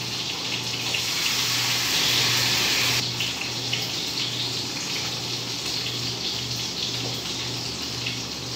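Steady hiss like running water, louder for the first three seconds and then dropping off suddenly, over a low hum that pulses on and off about once a second.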